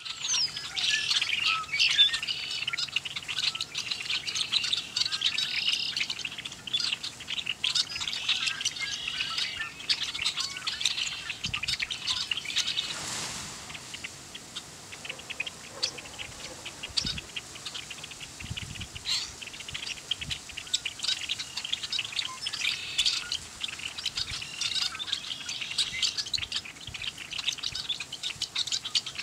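A flock of red-winged blackbirds calling together: many short, overlapping calls in a dense chorus, thinning out for a few seconds past the middle. A brief rush of noise about 13 seconds in.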